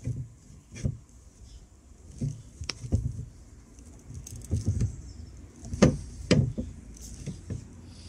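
Hand crimping tool squeezing a ring terminal onto a wire, with small handling clicks and rustles; two louder clicks about half a second apart, about six seconds in.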